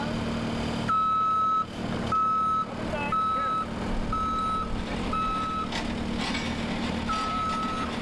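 Backup alarm of a Case TR310 compact track loader beeping as it reverses, about one steady tone per second, pausing briefly and starting again near the end. The loader's engine runs steadily underneath.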